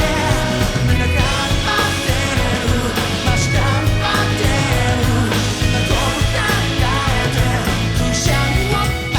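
Rock band playing live: electric guitar, bass and drums, loud and continuous.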